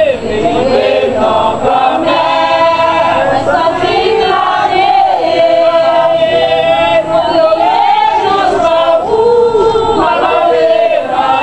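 A congregation of men and women singing a sacred chant together in Haitian Creole, unaccompanied, in long held melodic lines.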